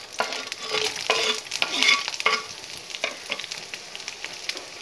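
Sliced onion dropped into hot oil in a frying pan, sizzling and crackling. The crackle is thickest for the first two seconds or so and then thins to a lighter sizzle.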